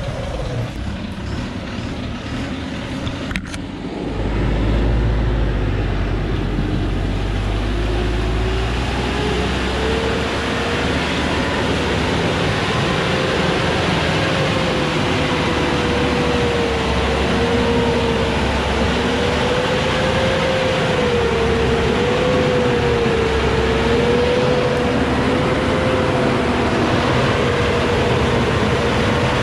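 Loaded Thaco Forland FC950 log truck's diesel engine working hard as it climbs a muddy slope on a cable. After a click about three and a half seconds in, it gets louder, and from about eight seconds its pitch rises and then wavers up and down as the load comes and goes.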